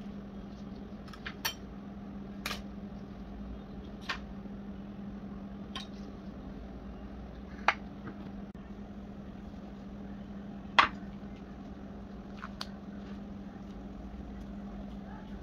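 Occasional light clicks and knocks of china plates and cutlery on a countertop, about seven in all, the sharpest about eleven seconds in, over a steady low hum.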